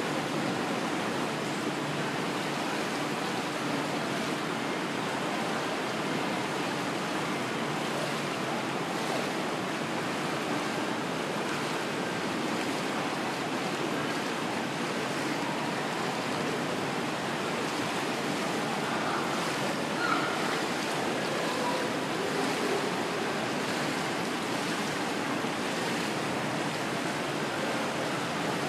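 Steady wash of indoor swimming-pool noise: water sloshing and lapping around people wading waist-deep, with one brief louder moment about twenty seconds in.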